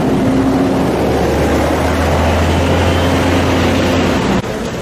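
An engine running steadily with a low hum over noisy outdoor roar; it cuts off abruptly near the end.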